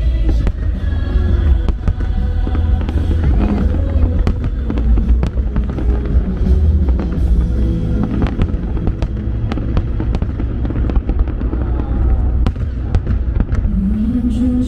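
Fireworks show: aerial shells bursting in quick succession, many sharp bangs and crackles over a continuous low rumble, with the show's music playing underneath.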